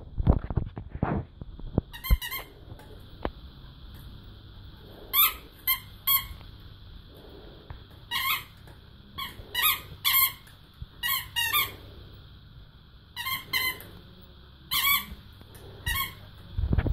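A dog biting and squeezing a blue squeaky toy, making short, sharp squeaks in irregular bunches of one to three, over a dozen in all.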